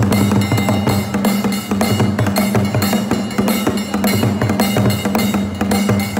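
Drum-led percussion music with a fast, steady beat.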